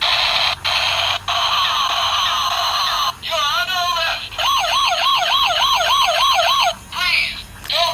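Battery-powered toy police car's electronic siren, switching between sound modes with brief breaks: first a hissing noisy tone, then a fast up-and-down wail of about three cycles a second.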